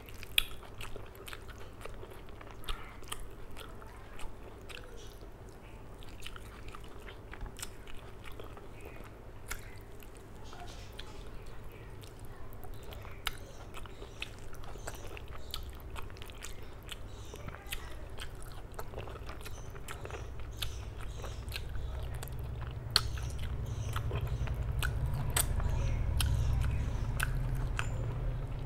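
Close-miked chewing and wet mouth sounds of a person eating rice and curry by hand, with many short sharp lip and tongue clicks. A low rumble swells in the last few seconds.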